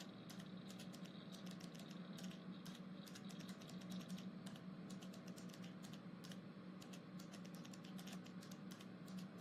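Faint typing on a computer keyboard, irregular quick clicks, over a low steady hum.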